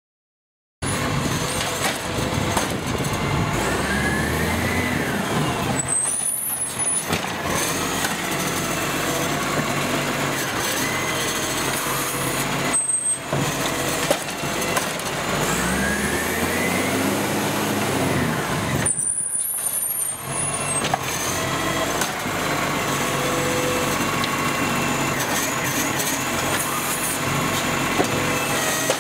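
Side-loader garbage truck working, its engine running steadily and twice revving up and back down as the hydraulic side arm lifts and tips a wheelie bin. The sound starts about a second in.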